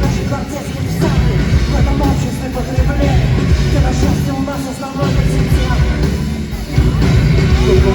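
Punk rock band playing live, loud and dense, with a heavy low end.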